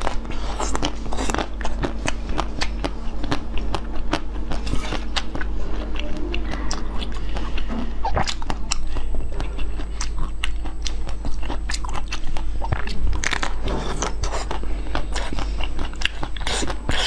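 Biting and crunching into a large, hard purple treat, with repeated crisp cracks and chewing.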